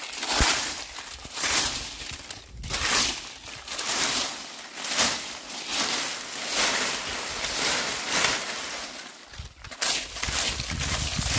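Broom sweeping dry leaves: repeated rustling swishes, one or two strokes a second in an uneven rhythm.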